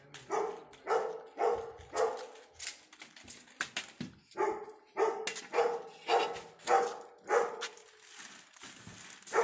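A dog barking over and over, about two barks a second, in two runs with a short break in the middle.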